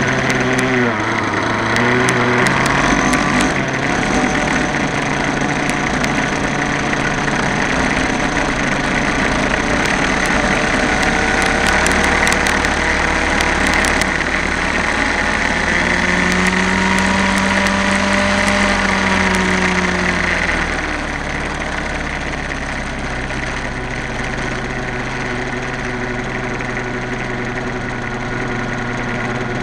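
X-Cell 60 model helicopter's glow-fuel engine running, heard close up from a camera mounted on the helicopter. The engine note is steady, with a tone that swells up and falls back about two-thirds of the way through, after which the sound drops a little.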